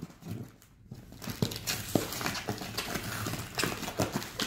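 Scissors cutting the packing tape on a cardboard box: a run of short snips and clicks, with packing paper rustling and crinkling.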